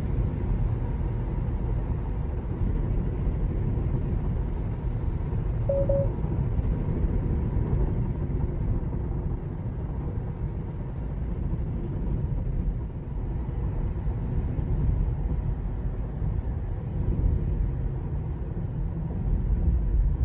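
Steady low rumble of tyre and road noise inside the cabin of a 2022 Tesla Model 3 electric car cruising on the highway, with one short beep about six seconds in.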